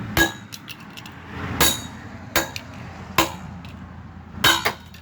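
A toy car being smashed: about five sharp blows, roughly a second apart, each with a brief clinking ring, the last one doubled.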